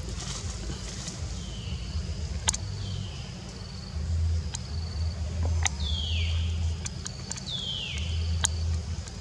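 Forest ambience: about four high wild calls that each fall in pitch, a short high tone repeating every second or so, and scattered sharp clicks. A low rumble sits underneath and swells a few times.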